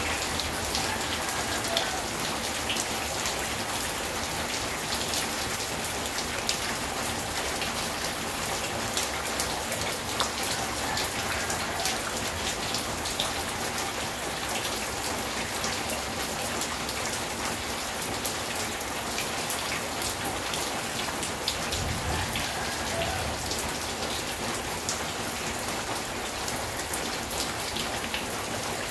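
Steady rain falling on a corrugated metal roof and a wet concrete yard, with many fine drop ticks.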